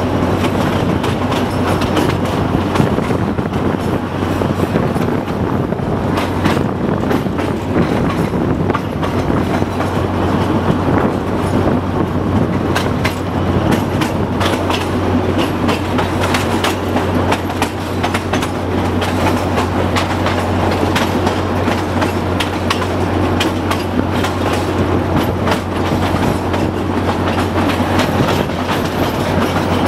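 TU4 narrow-gauge diesel locomotive under way, heard from inside its cab: a steady engine drone with the wheels clicking over rail joints.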